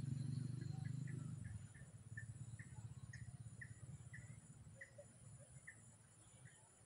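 A low motor hum that drops away about a second and a half in, followed by a string of about a dozen short high chirps, roughly two a second.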